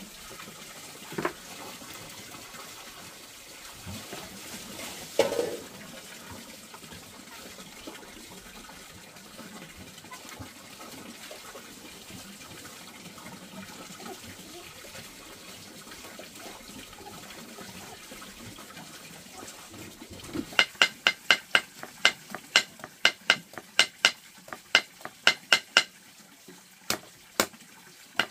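Water running or splashing, with a couple of knocks, then from about twenty seconds in a fast, even series of ringing metal clinks, about three a second.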